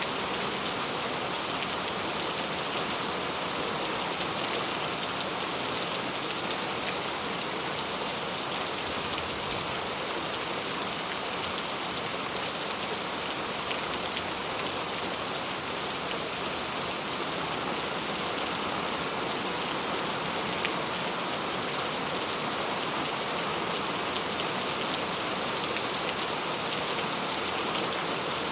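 Steady rainfall, a constant even hiss of rain with fine drops pattering on surfaces.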